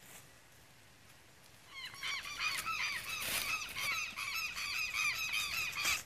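A flock of birds calling noisily: many rapid, overlapping squawking calls start about two seconds in and cut off abruptly at the end.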